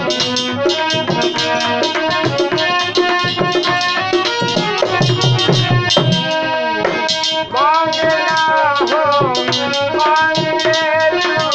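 Instrumental interlude of a Hindi devotional bhajan: hand drums keep a fast, steady beat while a melody instrument plays sustained notes with several pitch bends in the middle.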